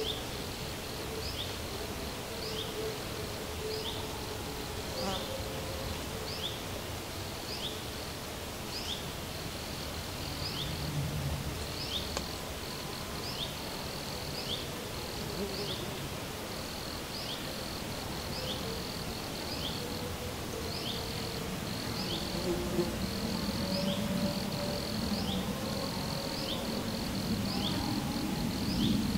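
Flying insects buzzing near the microphone, their hum wavering in pitch and growing louder near the end. Behind them runs a steady series of short, high, rising chirps, repeating about once every 0.8 seconds.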